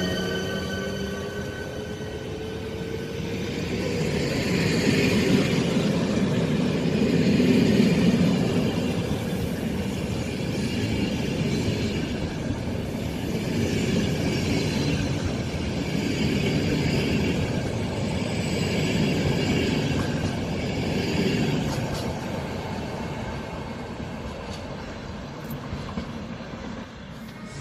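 ČD class 380 electric locomotive pulling away, its whine rising in pitch and fading within the first second or so. Its passenger coaches then roll past with a steady wheel-on-rail noise that swells, holds and fades near the end as the train moves off.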